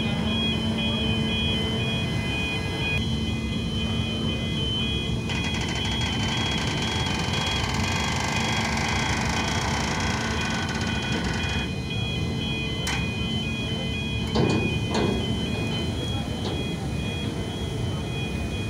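Steady low rumble of a car ferry's engines under way, with a constant hum over it. A hiss rises from about five seconds in and stops near twelve, and a few sharp knocks come a little after, as the stern car ramps are being raised.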